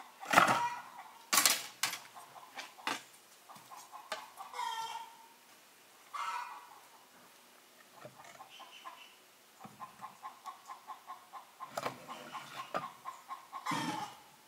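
Split wooden planks clattering and knocking as they are set down by a metal wood stove, loudest in the first few seconds and again near the end. Hens cluck in the background, with a fast run of short clucks in the second half.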